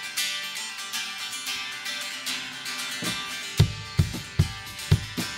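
A worship band starting a song: a guitar strummed in a quick rhythm, joined about three and a half seconds in by a kick drum on a steady beat, a little over two beats a second.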